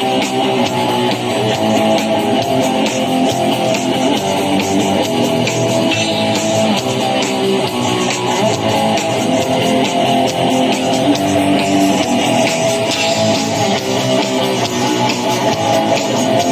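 Live black metal band playing at full volume: a continuous wall of distorted electric guitars over rapid, dense drumming.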